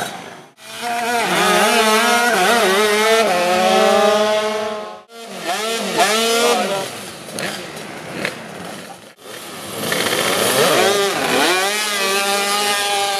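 Small-displacement two-stroke dragster motorcycle engines revved hard, their pitch sweeping up and down over and over with a buzzy, chainsaw-like note, as for a burnout and launch. The sound comes in three stretches, each broken off abruptly.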